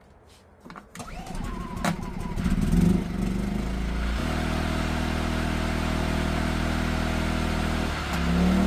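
PowerSmart portable inverter generator's small engine starting: it catches about a second in, revs unevenly, then settles into a steady run about four seconds in. Its speed dips and comes back up briefly near the end.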